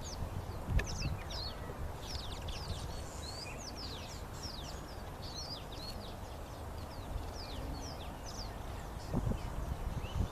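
Many small birds chirping together: a quick run of short, high chirps that each drop in pitch, over a steady low rumble.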